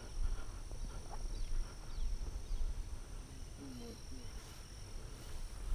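Outdoor roadside ambience: low wind rumble on the microphone and uneven steps through grass, with a few faint bird chirps and a short, low animal call about two-thirds of the way through.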